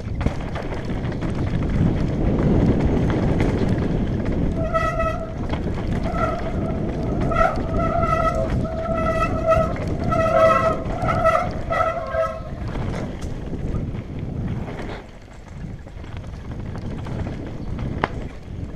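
Mountain bike tyres rumbling over a dry dirt trail. About a quarter of the way in, the disc brakes set up a horn-like squeal that comes and goes in short repeated squeals for around eight seconds, then stops as the rumble carries on.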